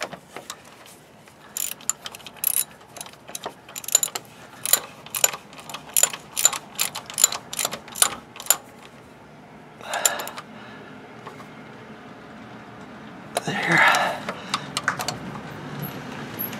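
Hand socket ratchet clicking in short irregular runs as it turns down the mounting bolts on a new front-axle four-wheel-drive actuator, tightening them by hand. Two louder scraping clatters come around ten and fourteen seconds in.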